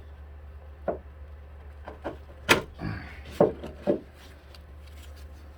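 Hand tools and metal parts knocking and clicking about five times while working one-handed on an engine bracket, the loudest knock about two and a half seconds in, over a steady low hum.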